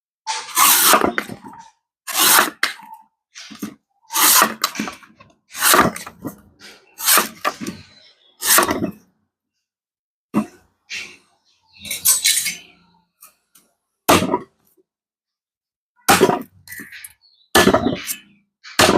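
A knife chopping into a king coconut's husk: a long series of sharp, hard strikes, often in pairs, with short pauses between groups.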